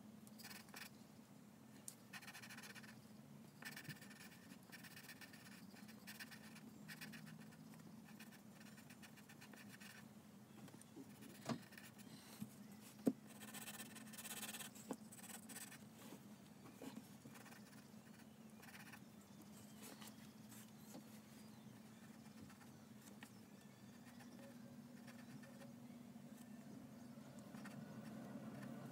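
Faint scratching of a graphite pencil sketching on paper, coming in short bursts of strokes, with two sharp clicks near the middle.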